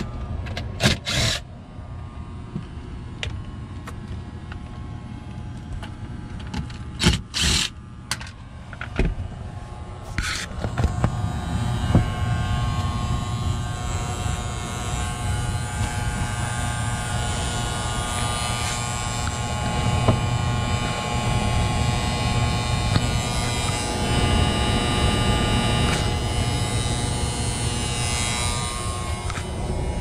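Attic HVAC heating unit running with a steady buzzing vibration, a hum with several pitched tones, which grows louder about ten seconds in; a few sharp knocks come in the first ten seconds. The vibration is taken for the loud noise that the home inspection reported with the heater on.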